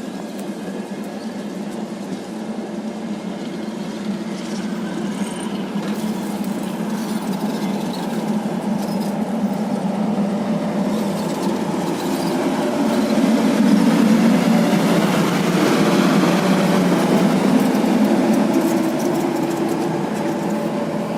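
VL40U electric locomotive hauling suburban coaches rolling past, the rumble of wheels on rails growing louder to a peak about two-thirds of the way through and then easing slightly, with a faint steady hum and scattered clicks.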